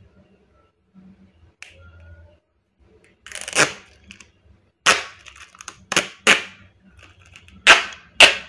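Protective backing being peeled off a sticky PVC ID-card sheet in a series of about six short, sharp rips. The first and longest comes about three seconds in, and the rest follow between five and eight seconds.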